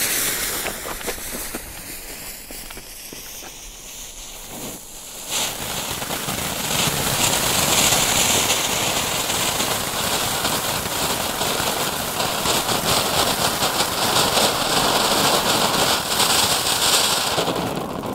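Small 15-gram gold glitter fountain (Nico Goldglitzerfontäne) going off. Its fuse sputters and hisses for about five seconds. Then the fountain catches and gives a loud, steady hiss thick with fine crackling, which starts to fade just at the end.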